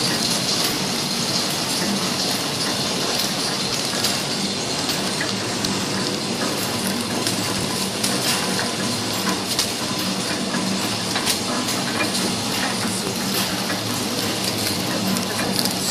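Horizontal flow-wrapping (pillow-pack) machine running, wrapping cakes in film: a steady hissing mechanical noise over a low hum, with faint light clicks.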